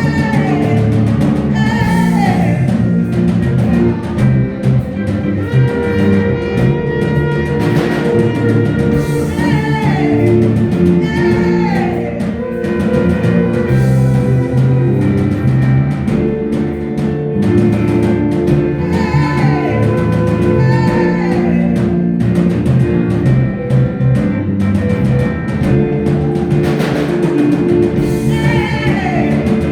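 Live praise music: a band with a drum kit keeping a steady beat under held chords, and voices singing over it.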